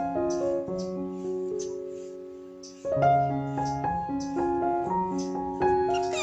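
Background piano music. It fades down, then comes back in loudly just under three seconds in.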